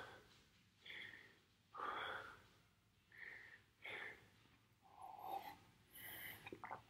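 Faint, hard breathing of a man catching his breath during the rest after an intense exercise round, roughly a breath a second.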